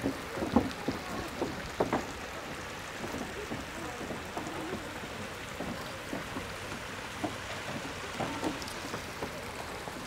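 Outdoor ambience: a steady rushing hiss of wind, with faint scattered voices and footfalls of people on a wooden boardwalk, a little busier in the first two seconds.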